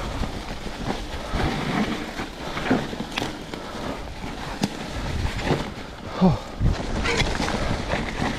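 Electric mountain bike ridden down a muddy, leaf-covered trail: tyres rolling through leaves and mud, with wind on the microphone, sharp knocks from the bike about three and four and a half seconds in, and a short falling tone a little after six seconds.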